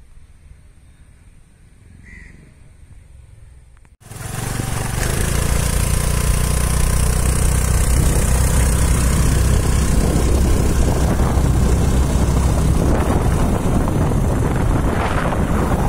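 Wind rushing loudly over the microphone on a moving Royal Enfield motorcycle, with the engine's low steady running underneath. It cuts in suddenly about four seconds in, after a few seconds of faint quiet.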